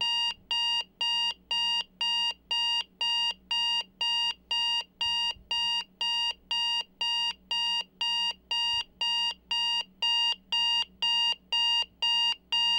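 Digital alarm clock buzzer beeping: short, identical high-pitched beeps, about two a second, repeating evenly without a break.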